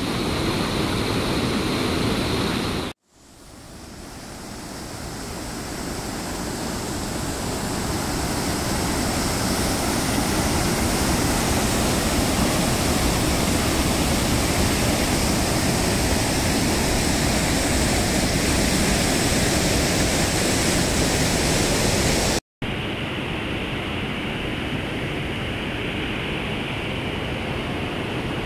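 Steady rush of fast-flowing water, like a mountain river or waterfall. It cuts out briefly about three seconds in and fades back up, then switches suddenly, about six seconds before the end, to a quieter, duller rush.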